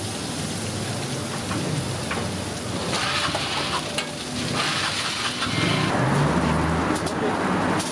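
Butter and cabbage-and-egg toast patties sizzling on a hot flat-top griddle, with a metal spatula scraping and tapping now and then. The sizzle grows louder about three seconds in and eases near the end.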